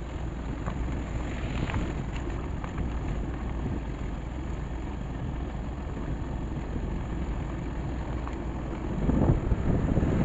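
Wind buffeting the microphone over a motorcycle running at road speed, as heard from the rider's seat. The rush grows louder about nine seconds in.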